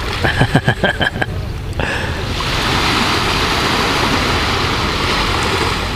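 Small sea waves breaking and washing up over a sand-and-pebble shore, a steady swelling wash. In the first second and a half there is a short run of sharp pulses.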